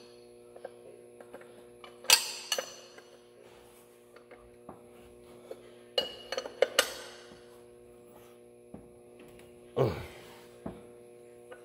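Hand wrench clinking and clanking on metal as an oil filter canister on the truck engine is snugged down: a few sharp strikes, the loudest about two seconds in and more around six to seven seconds and near ten seconds. A steady electrical hum runs underneath.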